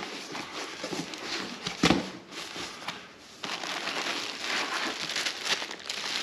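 Unboxing sounds: cardboard box flaps being pulled open, with a thump about two seconds in, then a plastic bag crinkling as a wrapped part is lifted out of foam packing.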